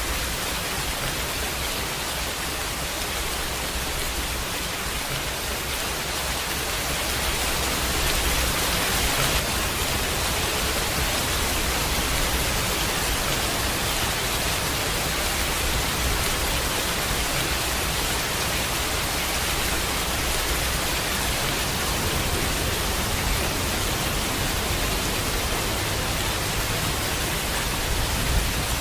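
Steady rain falling hard, an even hiss that swells a little about a quarter of the way through.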